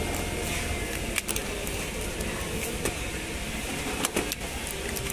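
Plastic miniature circuit breakers clacking against each other as a hand rummages through a crate of them: a few short sharp clicks, a pair just after a second in and another pair around four seconds, over a steady low background rumble.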